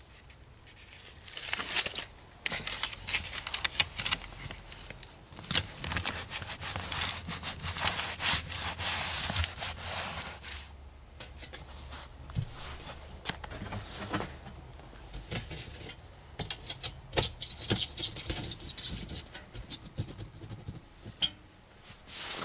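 Irregular bouts of hand scraping and rubbing, with many sharp clicks and scratches, loudest in the first half.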